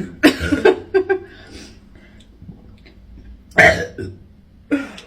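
A woman burping up gas from gulping a fizzy drink fast: throaty sounds near the start, then a short burp about three and a half seconds in, the loudest sound, and a smaller one a second later.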